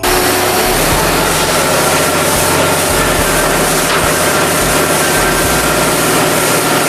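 Snack-processing line machinery running: a loud, steady mechanical din with a few faint steady tones through it.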